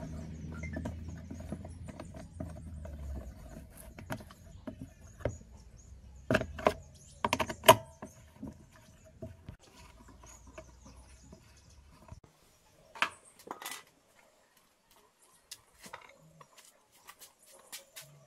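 Scattered clinks and knocks of metal tools and parts being handled, the loudest a few seconds in. A low hum runs underneath and dies away about twelve seconds in.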